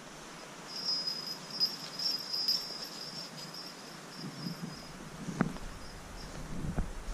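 Footsteps on a mossy forest floor, with soft thuds later on, the sharpest about five and a half seconds in. A thin, high, steady chirp sounds over the first few seconds.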